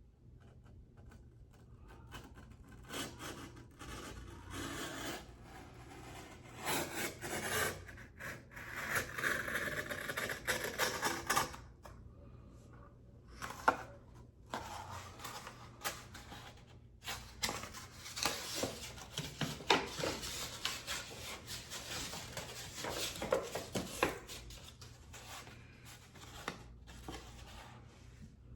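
Freshly sharpened knife blade slicing through sheets of paper in a cut test, a run of uneven scratchy strokes with paper rustling and a few sharp ticks of handling between them.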